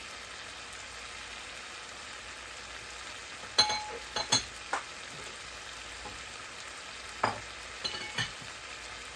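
Firm tofu cubes sizzling steadily in a frying pan with a little liquid. A few sharp clicks and knocks come in a cluster a little past the middle and again near the end.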